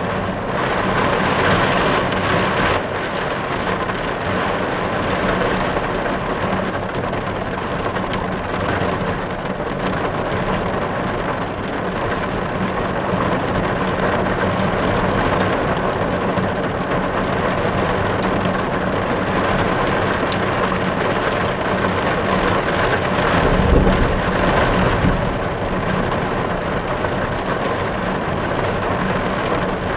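Steady rain drumming on a car's roof and windows, heard from inside the car. A low rumble swells briefly about three-quarters of the way through.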